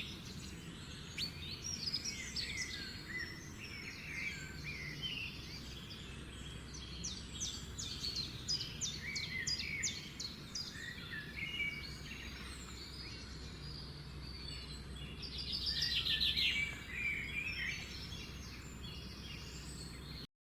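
Dawn chorus of several garden songbirds chirping and trilling together over a steady low background rumble. The busiest stretch comes about three-quarters of the way through, and everything cuts off suddenly at the very end.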